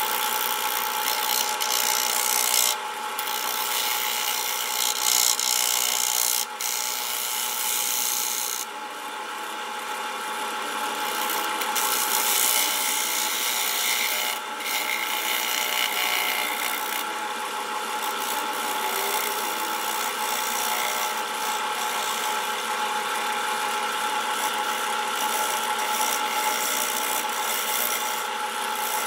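A turning tool cutting the outside of a spinning aromatic cedar bowl on a Grizzly wood lathe: a steady scraping hiss of the cut over the lathe's steady whine, swelling and easing a little as the tool moves.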